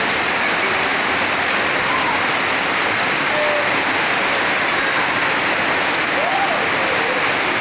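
Heavy rain pouring down steadily. Faint, brief children's voices rise over it about two seconds in and again near the end.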